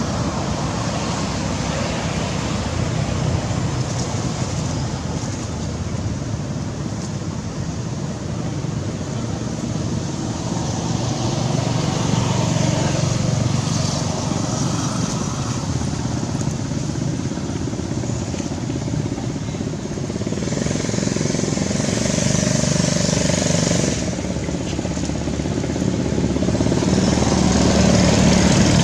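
Steady road-traffic noise from passing motorbikes and cars, with a high hiss that comes in about twenty seconds in, stops suddenly about four seconds later, and returns near the end.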